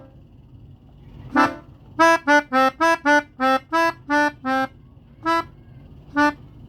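Pianika (melodica) playing a telolet bus-horn tune in short, separate notes: one note, then a quick run of about nine notes that step up and down in pitch, then two more single notes near the end.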